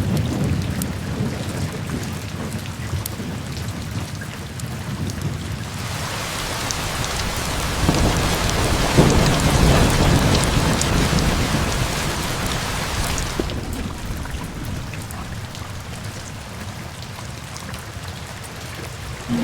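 Steady rain falling on a wooden roof, with thunder rumbling low. From about six seconds in, the rain grows heavier and a long roll of thunder swells, easing off again after about thirteen seconds.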